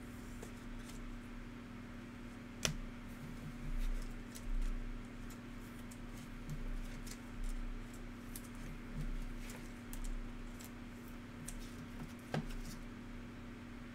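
Trading cards being handled: a card slid into a clear plastic toploader, then cards shuffled and tapped, giving scattered light clicks and rustles with two sharper clicks, about three seconds in and near the end, and a few soft bumps. A steady low hum runs underneath.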